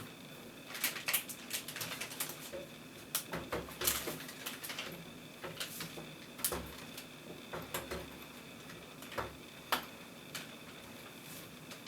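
Irregular small clicks and taps of hard plastic and metal computer parts being handled, as a PCIe riser cable connector is fitted to a graphics card.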